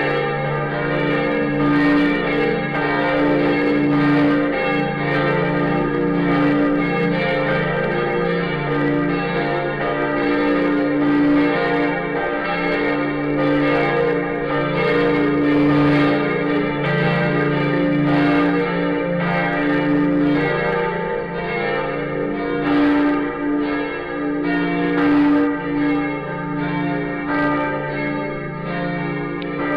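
Full peal of the Lindenkirche Berlin's church bells, several bells swinging and striking together out of step so the strikes overlap irregularly. Their tones ring on continuously between strikes.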